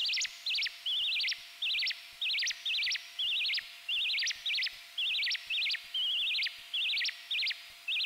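Eurorack patch of a self-oscillating Joranalogue Filter 8 frequency-modulated by an Orbit 3 chaos oscillator, making synthetic bird-like chirps: warbling trills that rise in pitch, about two a second, with a reverb tail.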